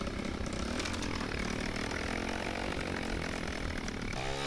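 Small 125cc four-stroke single-cylinder dirt bike engine on a modified scooter revving under throttle for a wheelie, its pitch rising and falling near the end.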